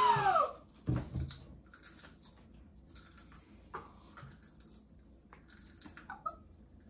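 A freshly opened bottle of carbonated black cherry flavored water hissing as it fizzes over, the hiss and an exclamation dying away within the first half second. A knock follows about a second in, then faint crunching and small clicks of potato chips being eaten.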